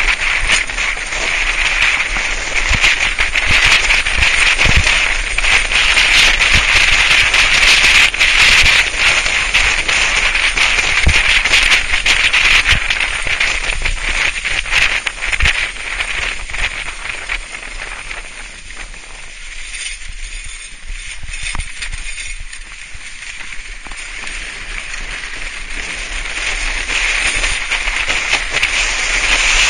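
Sledge sliding fast over packed snow: a steady scraping hiss dotted with crackles and ticks, as from snow spray hitting the sledge. It drops to a quieter hiss for a few seconds past the middle, then builds again.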